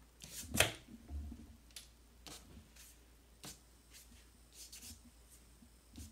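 Short, scratchy strokes of a drawing tool on paper as writing is added to the sheet, a dozen or so separate strokes, the loudest about half a second in.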